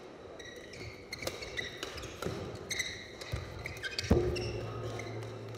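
Badminton doubles rally: rackets cracking against the shuttlecock again and again, with shoes squeaking on the court, and a louder hit about four seconds in.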